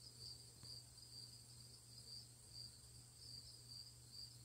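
Faint insect chirping in the background, a high trill pulsing about three times a second, over a low steady hum.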